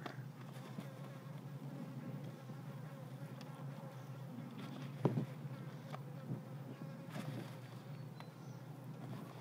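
A fly buzzing steadily, with a single sharp knock about five seconds in.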